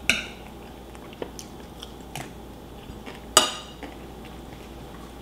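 A metal fork clinking against a plate while a man chews a mouthful of waakye, with a few light clicks and one louder clink about three and a half seconds in.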